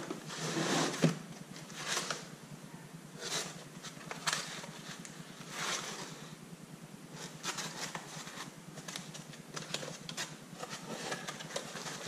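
A string of short rustling and scraping noises, a few seconds apart, from parts and packaging being handled, over a steady low hum.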